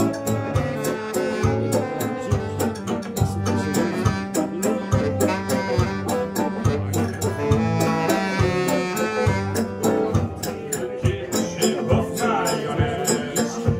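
Live band playing a chanson, with drums keeping a steady beat under the instruments.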